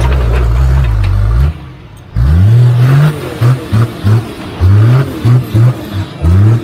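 Toyota Land Cruiser 80 series off-road 4x4 engine, held at steady revs, easing off about a second and a half in, then revved again and again in short bursts of throttle.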